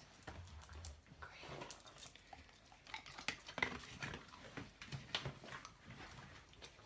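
Dog moving about, with scattered light clicks, knocks and rustles.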